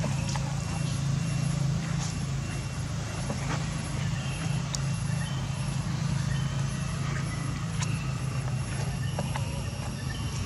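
Steady low hum of a motor running, with faint scattered chirps and clicks over it.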